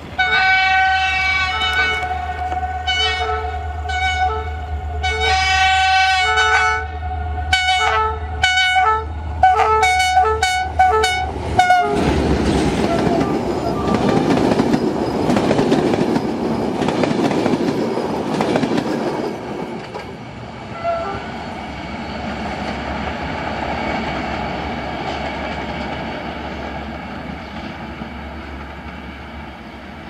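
GM-Electroputere 'Jimmy' diesel-electric locomotive sounding its horns, echoing: one long blast, then a run of shorter blasts that come faster and faster, over the low drone of its engine. About twelve seconds in, the locomotive and its coaches pass close by in a rush of wheel and rail noise that fades away.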